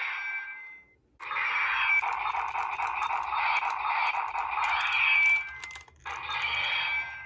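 Electronic sound effects from a Kamen Rider Saber toy sword, played through its small tinny speaker in three stretches: a short one, a long loud one from about a second in, and a third near the end.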